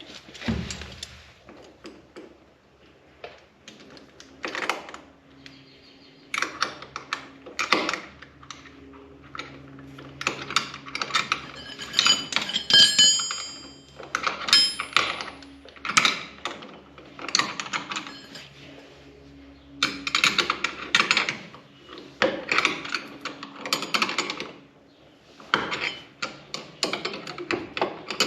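Milwaukee M12 FUEL impact driver driving a screw in repeated short bursts, its hammering mechanism clattering with each burst.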